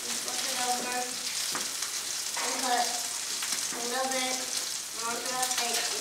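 Steak sizzling in a hot frying pan, a steady hiss, with quiet voices coming and going over it.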